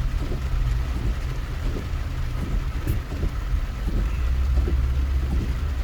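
Steady low rumble of a car driving on rain-wet roads, heard from inside the moving vehicle, with a short click about three seconds in.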